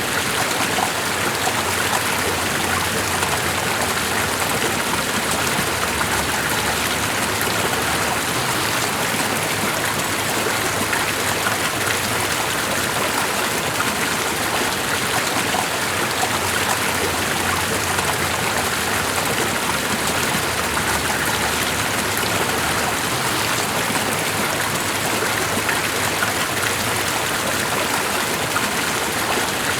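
Running water: a steady, even rush with no breaks or changes.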